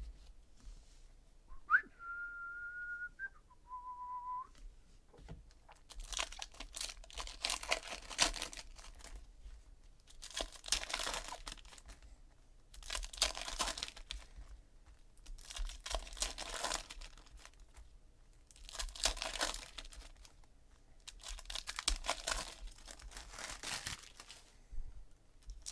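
Foil trading-card pack wrappers being torn open and crinkled, with cards handled and shuffled, in bursts every two to three seconds. Near the start, a short two-note whistle-like tone, the second note lower.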